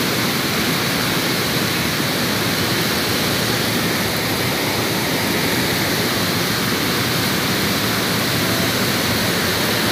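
Muddy flash-flood river water rushing and churning over a weir and its banks: a steady, loud, unbroken rush of water.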